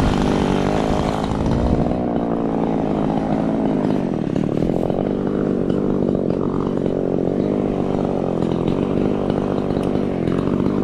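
Echo CS-3510 two-stroke chainsaw running steadily, its engine note holding nearly even pitch with slight wavers.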